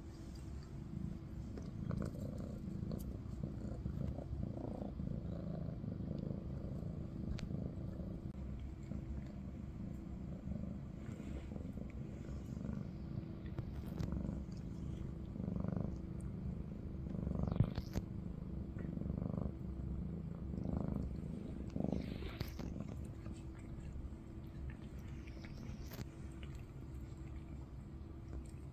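Maine Coon cat purring steadily while grooming a kitten up close, with a few short, soft licking sounds in the middle stretch.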